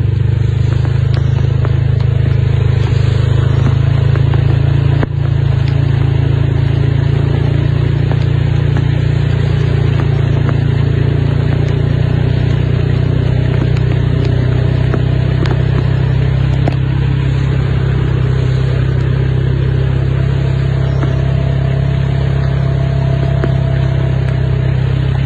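Vehicle engine running steadily with a deep hum, heard from inside the vehicle as it drives slowly through a flooded road; the engine note shifts slightly about halfway through.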